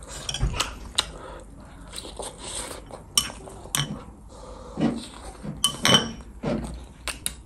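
Metal spoon scraping and clinking against a glass bowl of curry while scooping, a scatter of irregular clinks, some ringing briefly.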